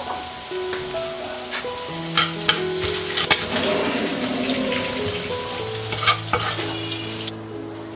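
Pig intestines and dried chillies sizzling in a hot oiled wok while a metal ladle stirs and scoops them, with several sharp clanks of the ladle against the wok in the middle. The sizzle cuts off near the end.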